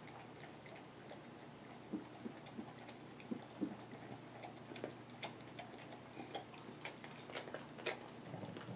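Shetland sheepdog licking out a glass measuring cup: faint, irregular clicks and smacks of tongue and teeth against the glass.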